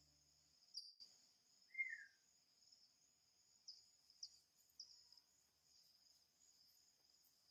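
Faint, steady high-pitched trilling of crickets. A single short falling bird call comes about two seconds in, and the tail of background music dies away in the first half second.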